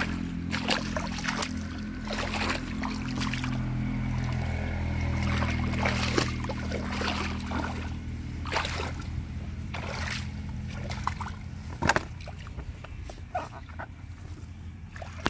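Water splashing and sloshing in a shallow muddy pond, in irregular bursts, over a steady low hum that fades about twelve seconds in.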